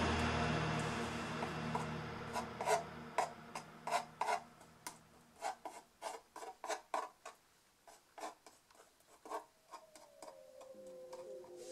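A flat painting knife scraping and smearing thick oil paint across a plastic sheet in short separate strokes, about one or two a second. Music fades out at the start and another track's gliding tones come in near the end.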